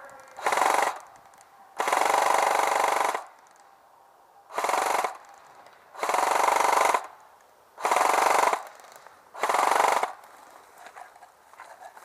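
Airsoft electric gun firing full-auto, six bursts of rapid clicking gearbox cycles, each lasting between about half a second and a second and a half, with short pauses between them.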